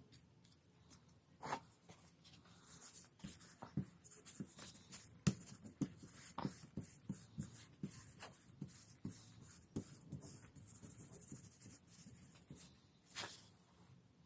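Paper being rubbed and pressed down by hand onto a gelli printing plate: soft rustling and rubbing with irregular small taps and knocks, the firmest a few seconds in.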